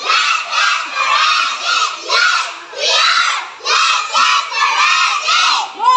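A patrol of young Girl Scouts shouting a chant together, many children's voices in short rhythmic bursts.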